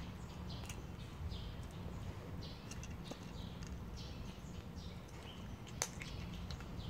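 A cat crunching dry kibble from a bowl: a run of short, irregular crunches. There is a single sharp click about six seconds in, over a steady low background rumble.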